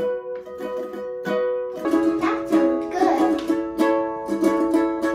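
Ukulele strummed in chords, the strums sparse at first and coming quicker and denser from about two seconds in.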